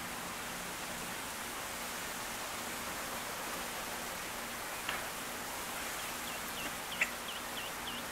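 Steady outdoor hiss with a faint low hum, then near the end a quick run of short, high peeps from the mottled ducklings, about four a second. Two sharp clicks stand out, one past the middle and one just before the end.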